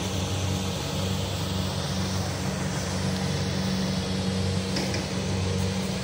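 Kubota DC-70 combine harvester's diesel engine running steadily with a constant low hum.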